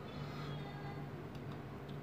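Faint clicks of eating from a ceramic bowl with a metal spoon, over a low steady hum.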